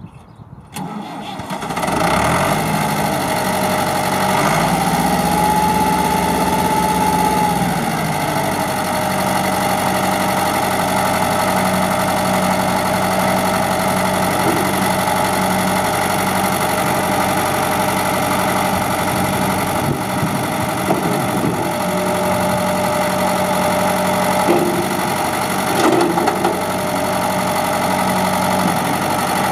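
Ford 6600 tractor's three-cylinder diesel engine cranked and started about a second in. It runs at a higher speed for a few seconds, then settles into steady running while the front loader is raised and lowered. A couple of short knocks come near the end.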